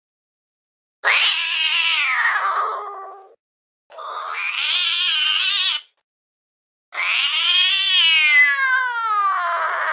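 Domestic cat giving three long, drawn-out meows with short gaps between them. The first falls in pitch, and the last is the longest, rising and then falling.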